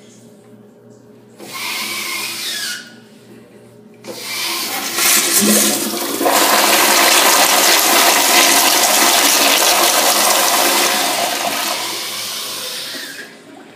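Crane Hymont toilet flushing through its flushometer valve: after a short burst of noise about a second and a half in, the water rushes in at about four seconds and surges loud and steady for several seconds before easing off and cutting out near the end. A powerful flush.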